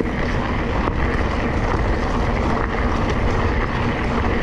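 Steady rush of wind buffeting the microphone, mixed with mountain-bike tyres rolling over a dirt trail on a fast downhill descent.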